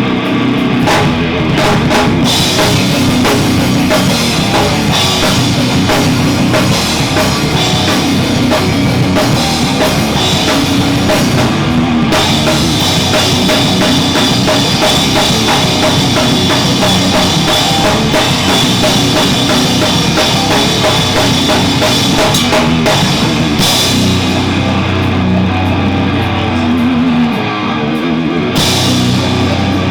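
Heavy rock band playing loud: drum kit and guitar, with a short dip in loudness a little before the end.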